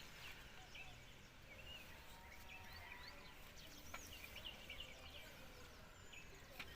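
Faint outdoor ambience with small birds chirping, many short scattered calls, and a couple of sharp clicks, one about halfway through and one near the end.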